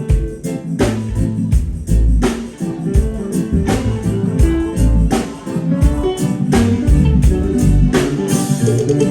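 Live reggae band playing an instrumental passage, with a heavy bass line and regular drum hits.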